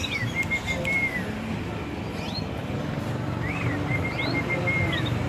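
Zebra dove (Bangkok-type perkutut) singing: two cooing phrases, each an upswung opening note, then a quick run of short even notes ending in a falling glide, one near the start and one about three and a half seconds in.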